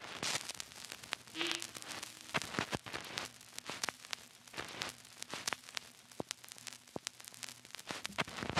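Crackling static: irregular pops and clicks over a steady hiss, with a faint low hum underneath.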